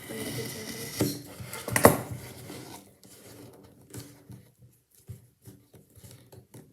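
Hands tearing and handling the packaging of a mailed parcel: rustling and scraping, with two sharp loud rips or knocks about one and two seconds in, then scattered small clicks.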